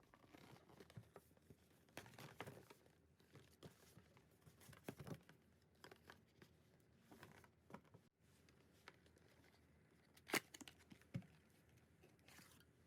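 Near silence with faint, scattered small taps and rustles, as of objects being handled; a short cluster of slightly louder taps comes about ten seconds in.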